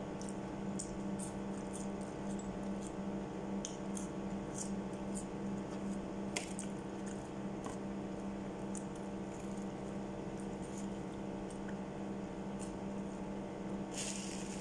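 Close-up eating sounds: chewing with wet mouth smacks and many small clicks while fries and a chicken burger patty are eaten, over a steady low electrical hum. A brief rustle near the end.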